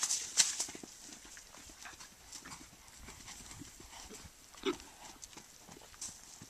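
Hoofbeats of a horse moving around a dirt round pen, soft thuds with a couple of louder strokes at the start and one sharp knock about two-thirds of the way through.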